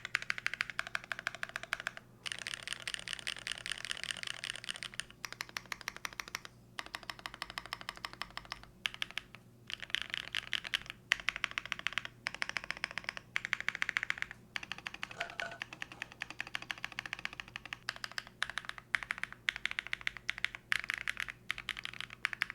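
Fast typing on a Theseus 75 split mechanical keyboard fitted with Bison Taro switches, DCX keycaps, a carbon fiber plate, foam and 50A top-mount grommets. The keystrokes come in quick runs with brief pauses between them, and the sound is crisp.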